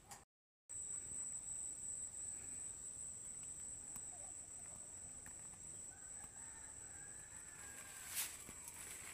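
A rooster crowing faintly once, about six seconds in, over a steady high-pitched whine. A short sharp click comes near the end.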